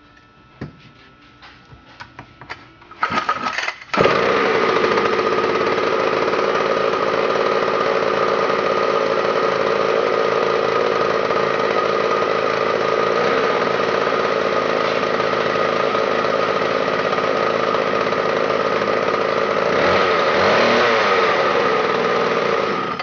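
Old McCulloch 125C two-stroke chainsaw, primed with a shot of gas, starting: a few clicks and a short sputter, then it fires about four seconds in and runs steadily, revving up briefly near the end before cutting off suddenly.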